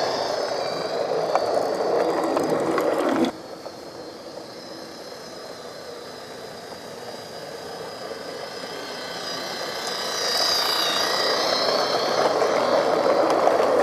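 A 16mm-scale model diesel locomotive running on garden track: the steady whine and rattle of its small MFA 15:1 geared electric motor and gearbox. It drops suddenly quieter about three seconds in and grows louder again about ten seconds in.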